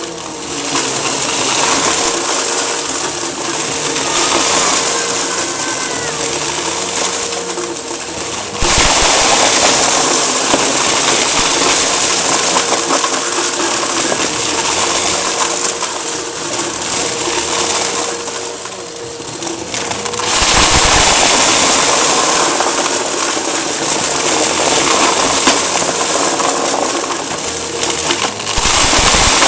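Eureka vacuum cleaner running continuously with a steady motor hum, sucking up debris that crackles and rattles through it. It gets louder about eight seconds in and again about twenty seconds in.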